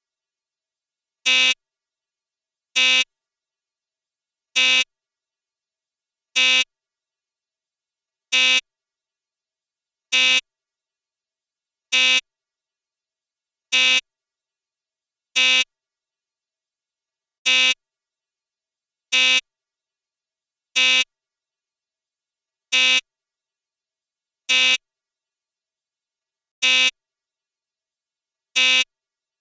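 Apartment door buzzer pressed over and over: sixteen short buzzes, each about a third of a second long, spaced roughly every two seconds with silence in between.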